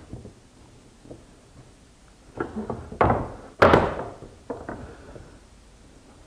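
Wooden boards being handled and set down: a few light knocks, then two loud hollow thuds a little past the middle, then two lighter knocks.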